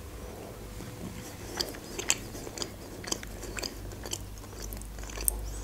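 A person chewing a crisp dark round snack close to the microphone, with small crunches about twice a second.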